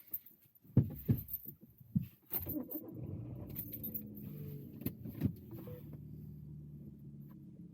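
Keys jangling and a few sharp clunks, then about two and a half seconds in a car engine starts and settles into a steady idle.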